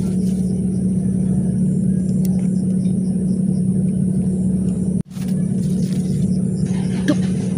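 A steady low rumble with a constant low hum, broken by a brief dropout about five seconds in.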